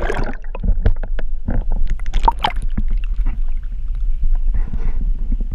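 Water sloshing, splashing and gurgling against an action camera in its waterproof housing as it bobs at the surface and dips under, with irregular splashes over a steady low rumble.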